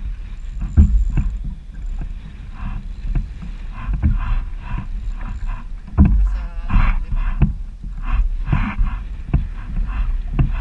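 Water splashing and slapping against a kayak's hull in choppy, windy conditions, in uneven bursts with low knocks and rumble against the hull.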